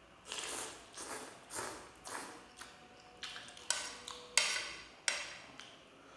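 Close-up eating sounds: about five rhythmic wet mouth sounds of chewing, half a second apart, then a spoon clinking and scraping against a plate or bowl several times, the loudest about four and a half seconds in.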